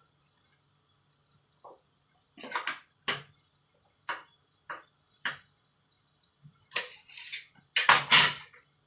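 Kitchen utensils knocking and clinking against cookware: a string of single short knocks, then two louder, longer clatters near the end.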